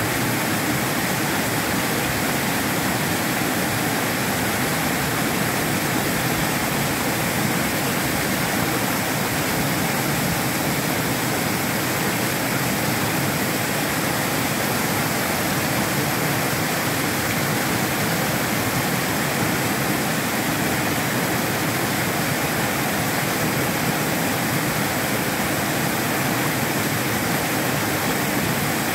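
Small rocky waterfall: water pouring steadily over boulders and down a rock face, a continuous rushing that does not change.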